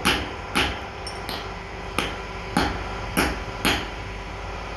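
Hammer blows striking metal, six sharp strikes at uneven intervals, part of hammer-working steel dental instruments.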